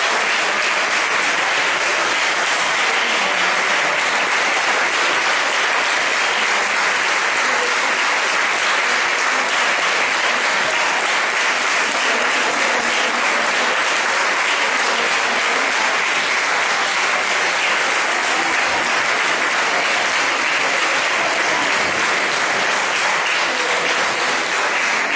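Audience applauding, a long, dense and steady clapping from a seated crowd.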